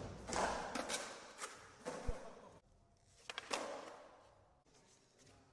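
Skateboard wheels rolling on a smooth concrete floor, with sharp clacks of the board popping and landing during flatground flip tricks: one about a second in, a hard landing with a thud about two seconds in, and a quick cluster of clacks around three and a half seconds. The rolling fades toward the end.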